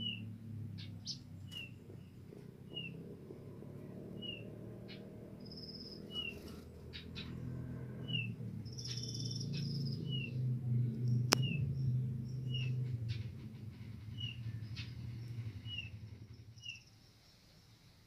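Hill blue flycatcher (tledekan) giving short, falling chirps about once a second, over a low background rumble that swells in the middle and fades near the end.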